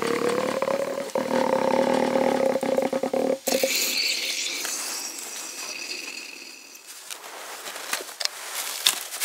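Plunger-style coffee press being pushed down into a mug: the plunger seal groans with a drawn-out, wavering squeak for about three and a half seconds, then air hisses through the packed coffee grounds as the press bottoms out, the sign the brew has been fully pressed. A few light clicks near the end.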